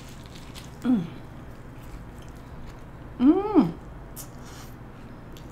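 A woman's closed-mouth "mmm" hums while chewing a mouthful of burger: a short falling one about a second in, then a longer one that rises and falls just past three seconds. Faint chewing sounds come in between.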